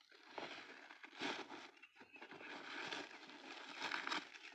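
Plastic wrapping crinkling and rustling, unevenly and faintly, as it is pulled off a cardboard carton.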